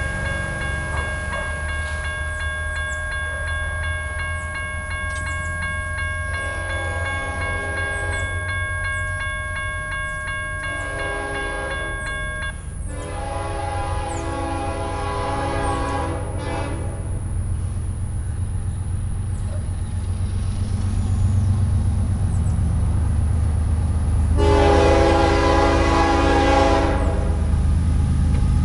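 A grade-crossing warning bell rings steadily as the gates come down, then stops about twelve seconds in. Meanwhile the approaching CSX freight locomotive sounds its horn in a series of long blasts for the crossing, over a low diesel rumble that grows louder near the end.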